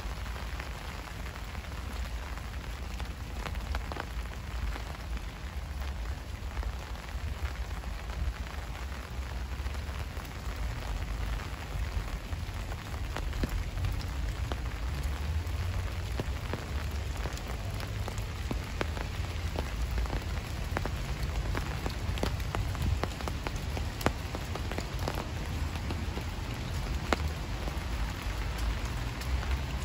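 Steady rain falling, with many sharp drop ticks scattered through an even hiss over a low rumble.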